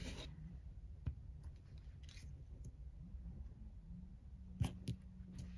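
Quiet crafting at a desk: a few faint taps and clicks of paper and small tools being handled, two of them close together near the end, with a faint low hum coming in about four seconds in.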